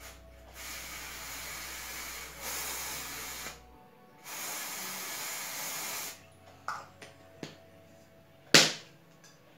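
Aerosol can of hair-colour spray hissing in two long bursts, the first about three seconds and the second about two. A few light clicks follow, then one sharp knock near the end.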